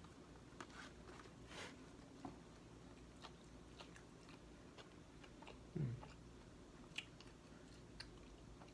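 Faint chewing and wet mouth clicks from a man eating White Castle sliders, with a short low falling hum from his throat about six seconds in.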